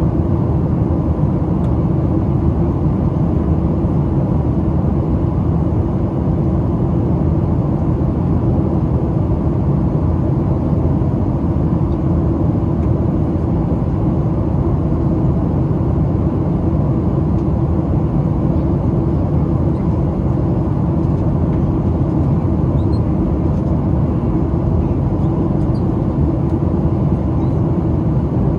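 Steady cabin noise inside a Boeing 737-700 on approach: a constant, even rumble of airflow and its CFM56-7B turbofan engines.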